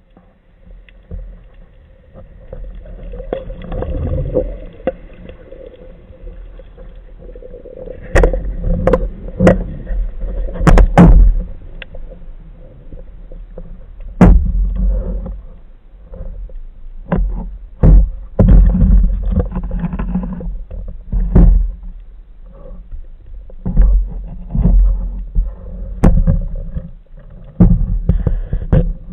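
Muffled underwater sound picked up by a speargun-mounted camera in its housing: a low water rumble broken by many irregular heavy thumps and knocks.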